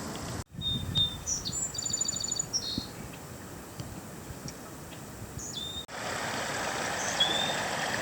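A songbird sings a short, high, rapidly trilled phrase, with a few single whistled notes after it, over steady outdoor background noise. The background noise grows louder about six seconds in.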